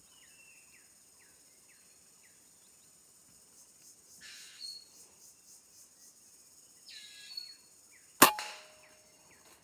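A single gunshot from a scoped hunting gun about eight seconds in: one sharp crack, by far the loudest sound, with a short ring-out. Before it, birds give short falling chirps over a steady high insect drone.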